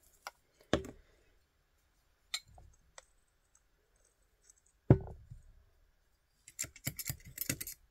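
Light clicks and clinks from a glass tumbler and small metal funnel being handled, with one heavier knock about five seconds in. Near the end comes a quick rattle of chunky glitter pouring into the funnel.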